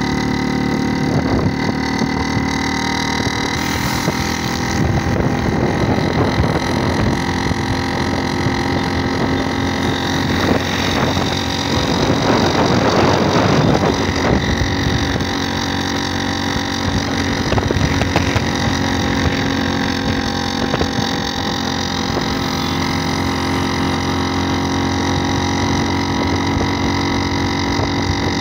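Motorcycle engine running at a steady cruising speed, with wind buffeting the microphone, rising for a couple of seconds near the middle.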